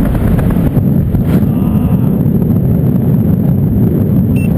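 Wind buffeting a camera microphone under an open parachute canopy: a loud, steady low rumble.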